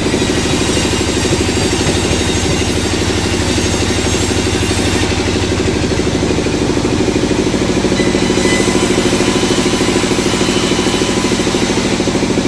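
Sawmill engine running steadily at an even speed, with no change in load.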